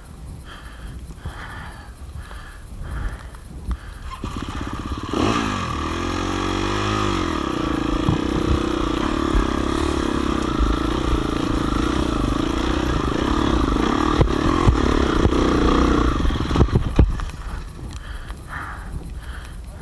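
Motorcycle engine revving hard. It starts about four seconds in, its pitch swings, then it is held steady at high revs for around ten seconds before dropping away near the end.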